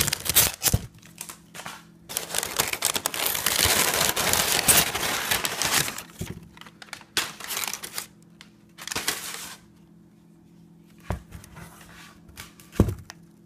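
Crumpled brown kraft packing paper crinkling and rustling as it is pulled out of a shipping box: long loud rustling for about six seconds, then shorter bursts. Near the end come two short knocks.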